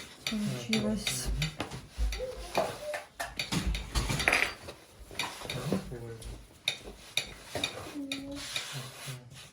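Dough for vareniki being kneaded on the table: irregular soft low thumps and handling noise, with small clinks and clatters of dishes and cutlery.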